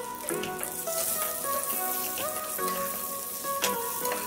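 Baby potatoes sizzling as they fry in hot mustard oil in a pan, with a few clicks of a spatula turning them near the end. Soft background music with held notes plays over it.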